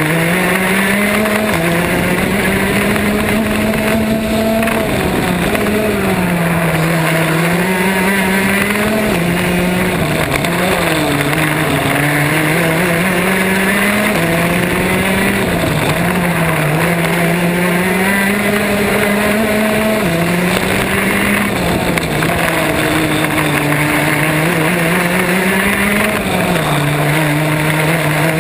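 Racing kart engine heard onboard at race pace. Its pitch climbs steadily, then drops sharply about every five seconds as the kart slows for a corner, and rises again under acceleration.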